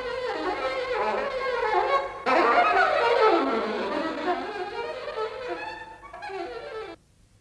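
Film score music led by violin, playing sliding melodic lines. A louder passage comes in about two seconds in with a falling, then rising glide, and the music cuts off abruptly near the end.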